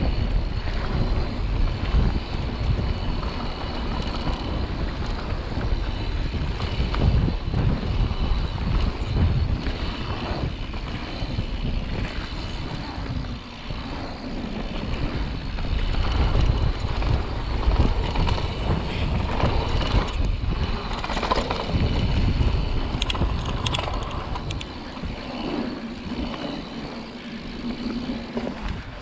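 Wind buffeting a handlebar-mounted action camera's microphone over the rumble of mountain bike tyres rolling fast on a dirt trail, with knocks and rattles from the bike over bumps.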